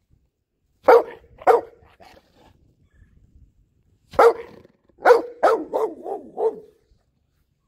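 American Pit Bull Terrier barking: two sharp barks about a second in, then after a pause a quick run of about six barks, the last ones shorter and fainter.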